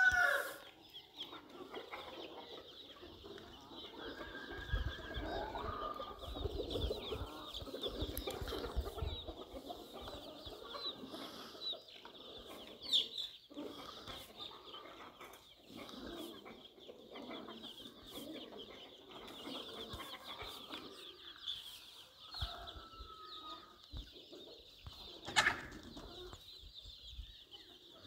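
Faint chickens clucking and calling now and then, over a steady high-pitched background hum.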